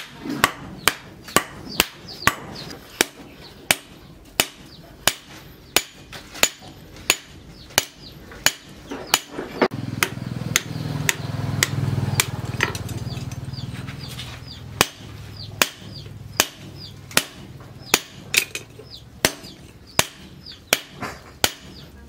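Hand hammer striking red-hot steel from a car axle on a steel post anvil, forging a double-bit axe head: sharp, evenly spaced blows at about one and a half a second. Midway a low hum swells up and then fades.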